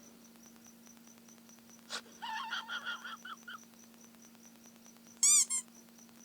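Sound-effect previews played in a phone editing app: a tap about two seconds in, a second and a half of squeaky chirping, then two loud squeaks that rise and fall in pitch near the end, over a steady low hum.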